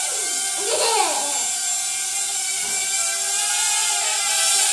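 Small indoor quadcopter drone's motors and propellers whining steadily as it flies, the pitch shifting briefly up and down about a second in as it manoeuvres.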